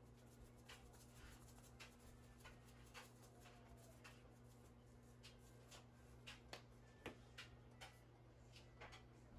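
Near silence: room tone with a steady low hum and scattered faint clicks.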